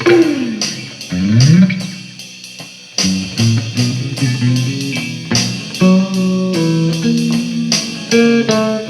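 Guitar playing a blues fill between sung lines: sliding, bent notes in the first couple of seconds, then a run of picked notes.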